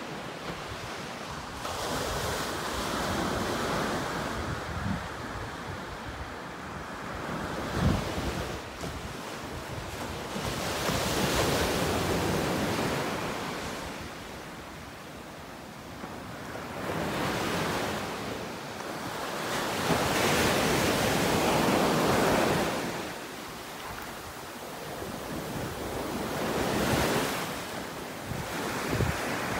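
Surf breaking on the beach in slow swells that rise and fall every few seconds, with wind buffeting the microphone. A single short thump about eight seconds in.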